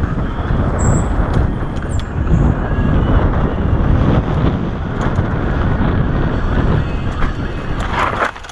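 Heavy wind buffeting on the microphone mixed with tyre rumble and small rattles from riding fast down a dirt singletrack trail; it falls away sharply near the end.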